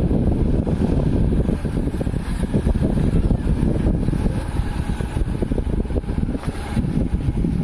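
A vehicle travelling on a rough road: a steady, dense low rumble of engine and road noise.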